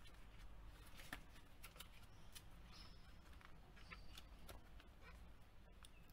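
Near silence with faint scattered clicks and rustles of the book's stiff, film-coated pages being handled and turned.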